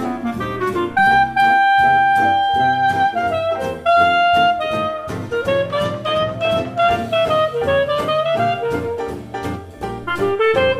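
Background music: a melodic lead line with long held notes over a steady drum beat.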